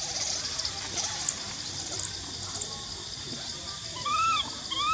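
Baby monkey crying: two short, rising-then-falling squealing cries near the end, with faint high chirps in the first half, over a steady high-pitched hiss.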